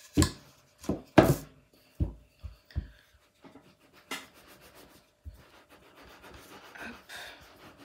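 Rolling pin knocking and rolling over dough on a table, several sharp knocks in the first three seconds. Then a ceramic bowl is set down and pressed and twisted onto the dough to cut a round, with a couple more knocks and soft rubbing.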